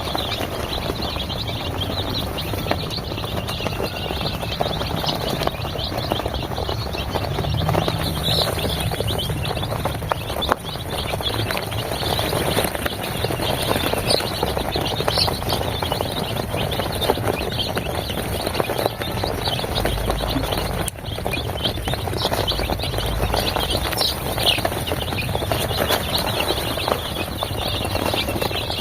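A crowd of four-day-old Sonali chicks peeping, many short high peeps overlapping without a break.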